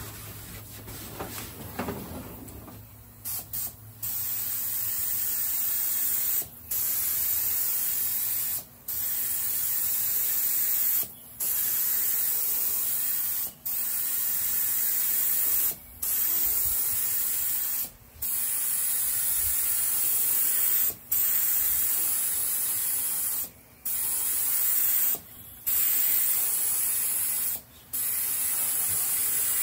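Gravity-cup air spray gun spraying paint: a loud, steady hiss from about three seconds in, broken by short pauses every two to three seconds as the trigger is let go at the end of each pass. The first few seconds hold only quieter handling sounds.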